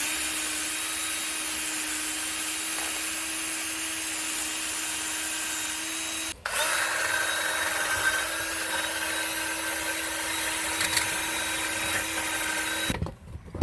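Power tool spinning a wire wheel against steel bolts to scrub rust and dirt off the shock fasteners, running at a steady speed with a constant hum. It stops for a moment about six seconds in, starts again, and winds down shortly before the end.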